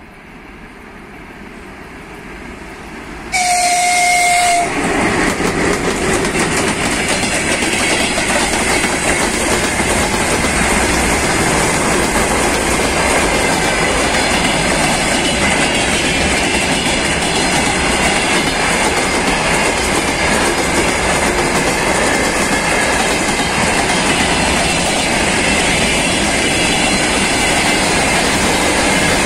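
VL11 electric locomotive approaching with a long freight train, growing louder, then one short horn blast about three seconds in. After that comes a loud steady rumble and clatter of the freight wagons' wheels rolling past close by on the rails.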